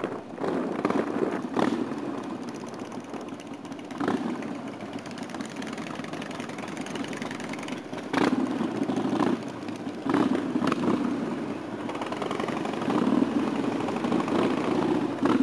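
Motorcycle engine running at low speed and then idling, its note swelling louder several times in the second half, with a few sharp knocks.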